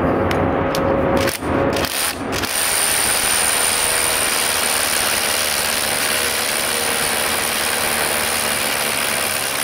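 Bosch GBH 36V-Li Compact cordless SDS rotary hammer drilling into a concrete block. A couple of brief starts come first, then about two and a half seconds in it runs steadily under load with a high whine over the hammering.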